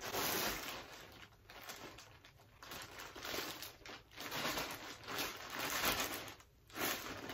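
Plastic poly mailer bag crinkling and rustling in several bursts as it is shaken and squeezed.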